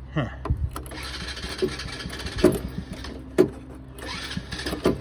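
Small single-cylinder go-kart engine being recoil pull-started after stalling: several sharp rope-pull strokes, with the engine turning over roughly in between.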